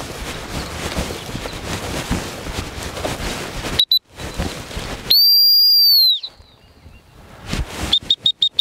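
Footsteps swishing through long grass, then a dog-training whistle blown by the handler as a signal to the quartering dog. There is one short toot, then a loud steady blast lasting about a second, and near the end a quick run of about five short pips.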